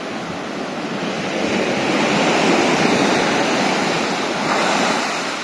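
Sea surf rushing and washing, swelling to a peak partway through and then easing off, with wind buffeting the microphone.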